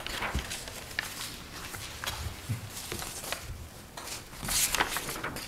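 Sheets of paper being handled and shuffled at a table: scattered light taps and knocks, and a brief rustle about four and a half seconds in.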